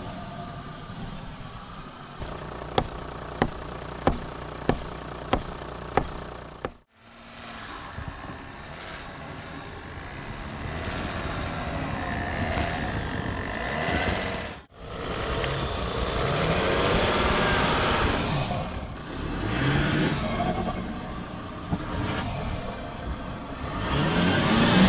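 Toyota Land Cruiser 100's 4.2-litre diesel engine working through deep snow, its note rising and falling as it revs, getting louder near the end. A run of six sharp clicks sounds a few seconds in, and the sound drops out briefly twice.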